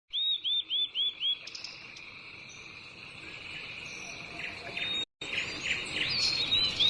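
Outdoor nature ambience: a bird gives five quick, identical chirps, then more scattered chirps, over a steady high-pitched insect drone. The sound cuts out for a moment about five seconds in.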